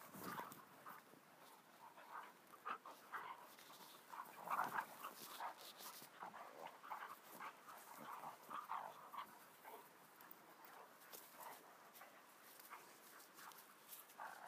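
Two dogs play-wrestling, faintly panting and making short, irregular huffing noises, the loudest burst about four and a half seconds in.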